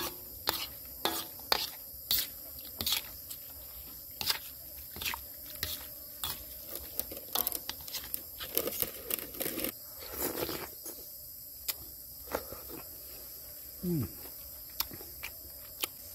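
Spatula clinking and scraping against a metal bowl in irregular taps as a wet mix of boiled eggs and watermelon is tossed, with a longer scrape about ten seconds in. A steady high insect drone runs underneath.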